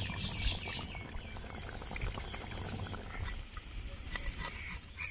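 A fish curry in oil and gravy simmering in a wok, bubbling with a fine crackle. A few high bird calls are heard near the start.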